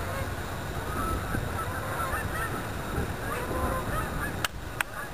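A flock of geese honking, many short calls overlapping, over a steady low rumble. Two sharp clicks near the end.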